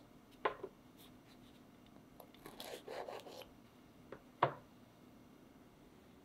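Crisp baked choux pastry shells handled on a metal wire cooling rack: light taps near the start, a brief scratchy rustle in the middle, and a sharp knock a little past four seconds as a shell is set down on the rack.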